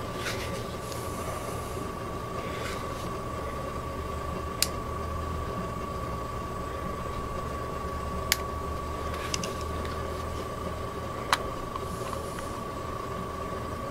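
Steady low background hum with a thin high whine, broken by three sharp clicks a few seconds apart, from handling a small 12 V battery pack and its DC barrel plug.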